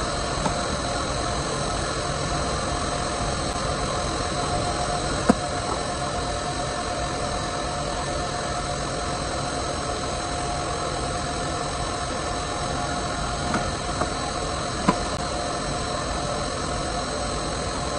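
Zumex orange juicer powered on and running, a steady mechanical hum with a high whine over it. A few short knocks come from the machine's cabinet being handled, about five seconds in and twice near the end.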